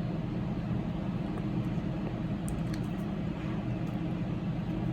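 Steady low mechanical hum of room background noise, with a couple of faint soft ticks about two and a half seconds in.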